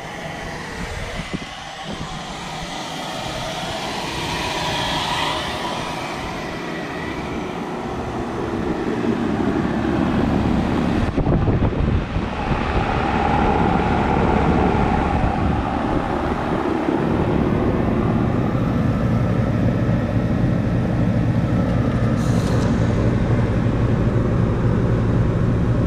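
Air-conditioner condensing units running: a steady fan rush with a low compressor hum, growing louder about a third of the way in.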